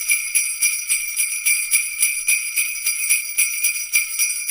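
Jingle bells shaken in a steady rhythm, about two to three shakes a second, as in a Christmas music track.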